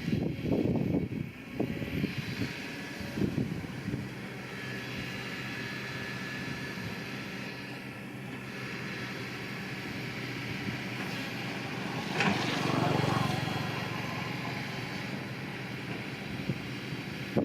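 Diesel engine of heavy earth-moving machinery running steadily with a low hum, with a few short irregular bursts in the first few seconds. The engine swells louder for about a second, roughly twelve seconds in.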